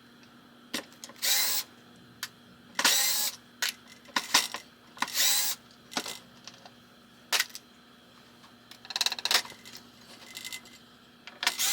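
Hand tools and small metal hardware being handled while stripping a pinball playfield: scattered sharp clicks and short scraping, clinking rattles, with a quick run of rapid clicks about nine seconds in.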